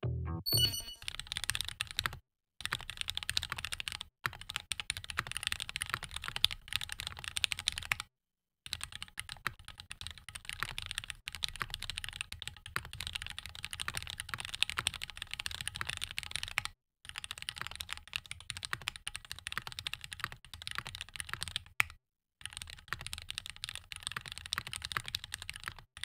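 Typing on a stock Keychron Q1 Knob, an aluminium-case, gasket-mounted mechanical keyboard with linear Gateron Red switches and ABS keycaps: a dense, continuous run of keystroke clacks, broken by a few brief silent gaps.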